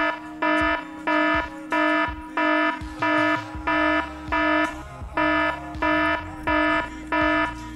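Electronic alarm beeping: a steady pitched tone pulsing on and off about one and a half times a second, twelve or so short beeps.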